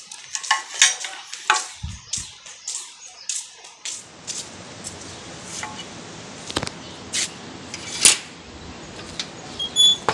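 Metal clinks and clanks of hand tools being handled, then sharp clacks as a steel gate's sliding bolt latch is worked and the gate is opened, with a short high squeak near the end.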